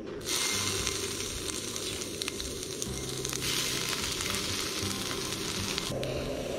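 Meat sizzling on a hot steak plate, a dense frying hiss that starts just after the beginning and cuts off suddenly about six seconds in.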